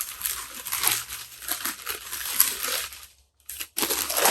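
Packing material crinkling and rustling as a wrapped camera is unwrapped by hand. It goes on steadily for about three seconds, pauses briefly, then returns in two short bursts near the end.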